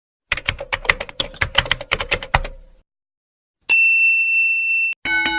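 Typewriter sound effect: a fast run of key strikes for about two and a half seconds, then after a short pause a single ringing bell ding. A chime of several tones begins just at the end.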